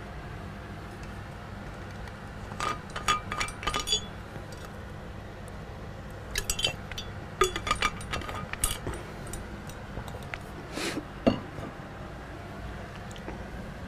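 Scattered light clinks and taps of hard objects in three short clusters, over a steady low hum.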